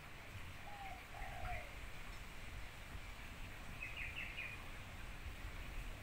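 Spotted dove giving two short, soft coo notes about a second in, with brief high chirps of small birds just after and again around four seconds in, over a low steady outdoor rumble.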